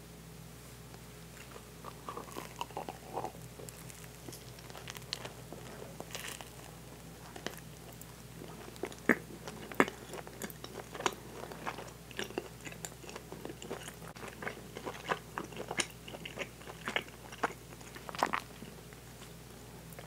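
Close-miked eating of a berry bagel sandwich: a run of sharp, wet clicks and crackles from biting and chewing the chewy bagel and its soft filling, with the two loudest snaps around the middle.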